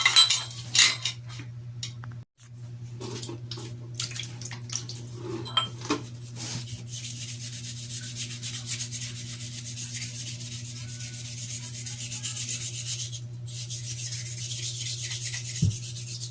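Shimano Acera bicycle crankset being rubbed and scrubbed by hand to clean and polish it, a steady fine scrubbing that starts in earnest partway through. A few sharp metal clinks come in the first couple of seconds.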